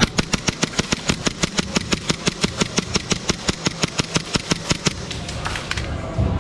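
Airsoft rifle firing a long full-auto burst: a rapid, even string of shots at about eight a second that stops shortly before the end.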